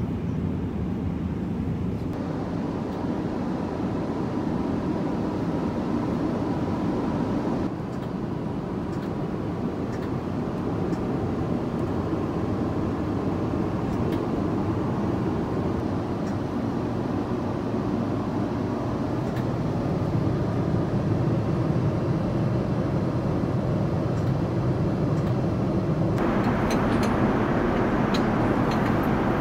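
Steady noise inside an Airbus A350-900's cabin in cruise, with air and engine noise weighted toward the low end, changing in level and colour at a few points. It is brighter over the last few seconds, with a few light clicks near the end.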